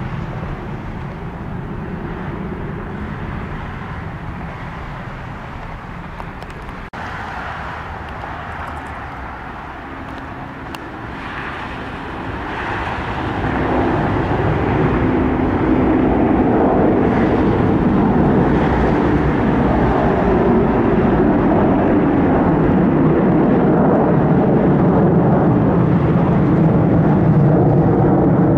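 Airplane engine noise: a steady rumble that swells from about halfway in and then holds loud.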